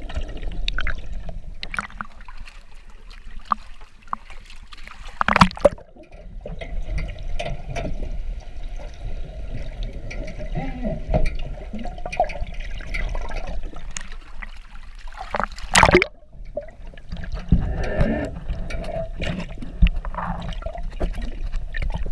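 Water heard through a submerged action camera's waterproof housing: a muffled, uneven swishing and bubbling, with two louder rushes about five seconds in and again near sixteen seconds.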